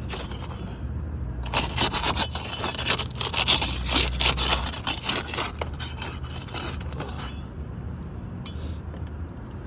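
Steel roofing trowel scraping under asphalt shingles to break their seal, a quick run of rough, gritty scrapes that stops about seven seconds in. The shingles are worn and shed granules as they are worked.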